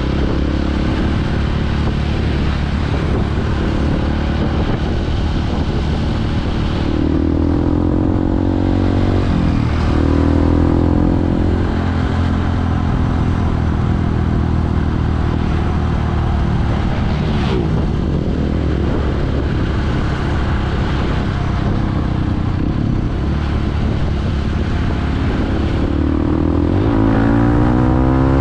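Motorcycle engine running at riding speed, heard from the rider's seat. Its pitch climbs as it accelerates about a third of the way in and drops suddenly at a gear change, then climbs again near the end.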